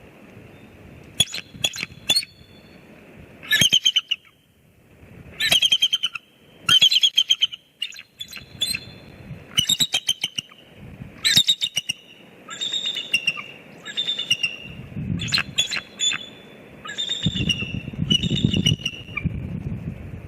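Bald eagles calling: bout after bout of high, rapid chattering notes, a new bout every second or so. A low wind rumble on the microphone builds toward the end.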